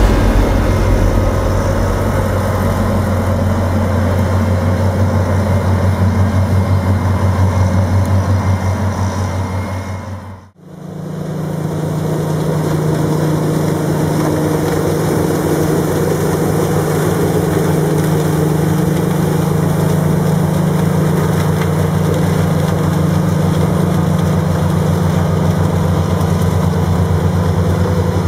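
Heavy diesel machinery engines running steadily. About ten seconds in the sound fades out briefly and a second engine takes over, running at a higher, steady pitch.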